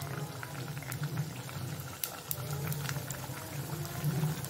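Hot oil sizzling and crackling around methi-atta mathri (fenugreek-leaf wheat-flour discs) as they deep-fry in a steel pan, with a steady low hum underneath.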